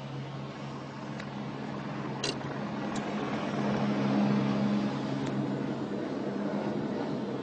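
Police helicopter flying low past a moving car, heard over the car's steady engine and road drone. The sound swells as it comes closest, about four seconds in. A few faint sharp clicks sound, the clearest about two seconds in.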